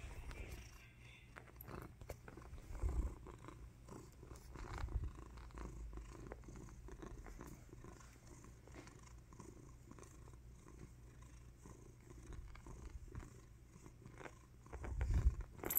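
Domestic cat purring steadily as it is scratched on the head and cheek, with a few louder low thumps, the loudest near the end.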